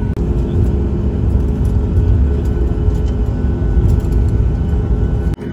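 Loud, steady rumble of a Ryanair Boeing 737 MAX 8-200 heard from inside the cabin, its CFM LEAP-1B jet engines and airflow giving a deep roar with steady engine tones over it. The sound cuts off suddenly near the end.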